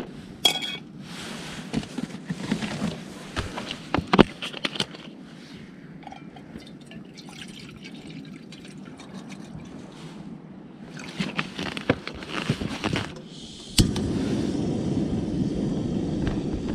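Clinks and clatter of a small camping stove and cookware being set up, with water poured for tea. Near the end a sharp click is followed by a steady hiss that runs on, the stove being lit.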